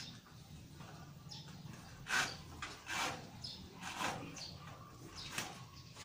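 Electrical cable being pulled hand over hand through flexible conduit: a series of short scraping swishes, roughly one a second.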